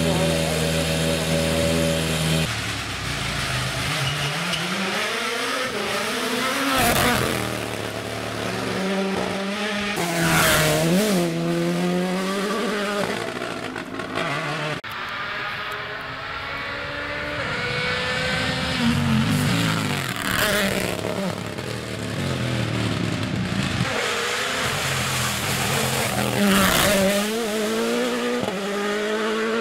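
Toyota GR Yaris Rally1 rally car driven hard on a test stage, its engine revs climbing and dropping sharply again and again through the gear changes as it approaches and passes, with tyre noise. A steady hum runs for about the first two seconds before the car is heard.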